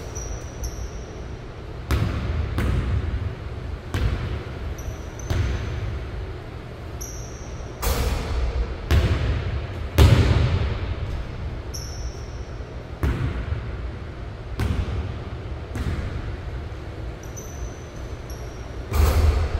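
A basketball bouncing on a hardwood gym floor, a sharp impact every second or two, echoing in the large hall, with short high sneaker squeaks in between. The loudest hits come about halfway through and near the end.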